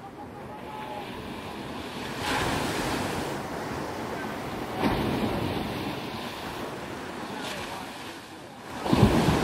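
Ocean surf washing up the beach: small waves break and run up the sand in surges, about two seconds in, again near five seconds, and loudest near the end, with wind buffeting the microphone.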